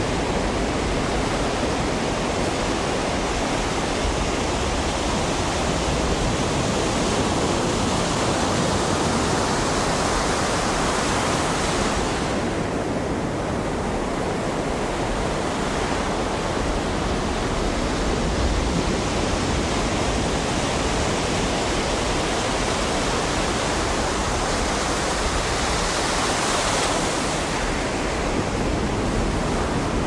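Ocean surf: waves breaking and washing in as a steady hiss of white water. The high hiss thins briefly about twelve seconds in and swells again near the end as another wave breaks.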